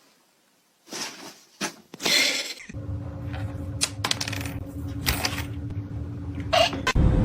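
A series of sharp clicks and clinks, as of small hard objects knocking together, with a steady low hum underneath from about a third of the way in.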